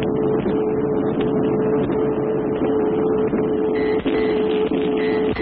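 A steady single-pitched tone over a hiss of noise, coming through a loudspeaker: the radio tone signal sent out during the bomb run ahead of the drop.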